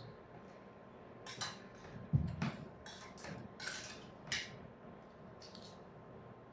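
Eating sounds: fingers and a plastic spoon scraping and picking at rice and fried food on a stainless steel compartment tray, giving a string of short crackly scrapes, with one dull knock against the tray or table about two seconds in.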